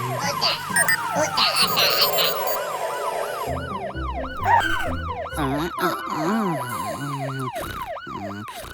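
A cartoon fire truck's siren in fast yelp mode, rising and falling about three times a second, over background music.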